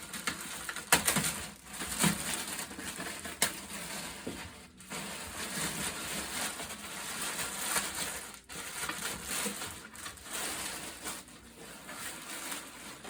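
Plastic wrapping and packing material rustling and crinkling as a drum is unwrapped from its box, with a few sharp handling clicks in the first few seconds.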